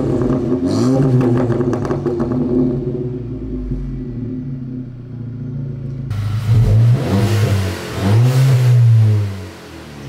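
Audi B8 A4's turbocharged second-generation EA888 four-cylinder free-revving through a catless downpipe and a nearly straight-piped touring exhaust. Revs fall off toward idle in the first half, then come several sharp blips, the last and longest near the end; the exhaust note echoes off a nearby wall.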